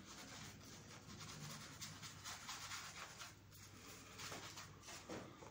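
Synthetic-bristle shaving brush scrubbing wet shaving-soap lather into a beard, faint soft brushing strokes repeated over and over.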